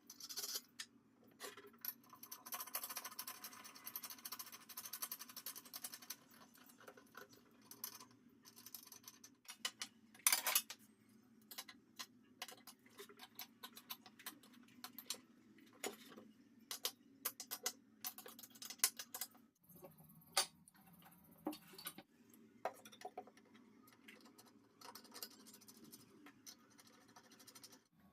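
Irregular small clicks, taps and knocks of parts and tools being handled by hand, a few of them louder (about ten seconds in and near the end), with a soft hiss through the first six seconds.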